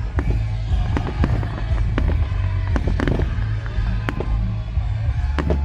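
Fireworks display: a rapid string of sharp bangs and crackling bursts, several a second, over a heavy low rumble, with music playing underneath.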